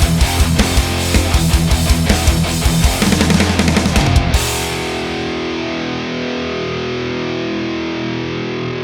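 Gibson Les Paul Special SL electric guitar played through heavy distortion: a fast, rhythmic heavy-metal riff, then about four seconds in a held chord that rings on steadily.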